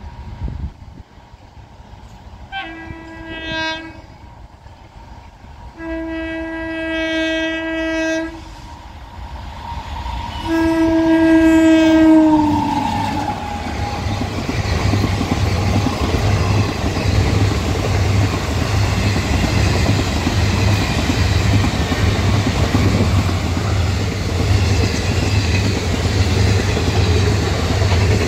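WAG-9H electric locomotive sounding its horn three times as it approaches, a short blast and then two longer ones, the last dropping in pitch as the locomotive passes. Then the passenger coaches run past with the wheels clattering rhythmically on the rails.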